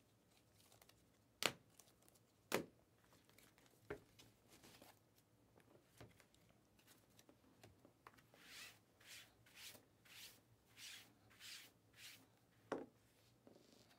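Faint handling of trading cards: a few light taps, then a run of soft swishes about twice a second as cards are slid and flipped, and another tap near the end.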